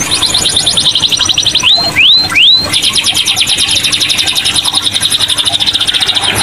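Caged domestic canary singing loud and non-stop: fast rolling trills, broken about two seconds in by three rising whistled notes, then another long rapid trill.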